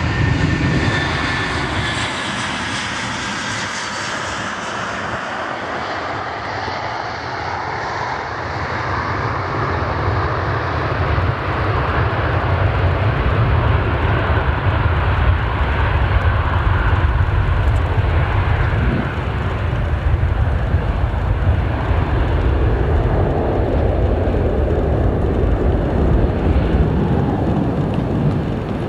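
Boeing 787-8 Dreamliner's twin turbofan engines on landing. A high whine fades over the first few seconds as the airliner touches down. Then a broad rushing engine noise builds from about ten seconds in and holds as the aircraft rolls out along the runway.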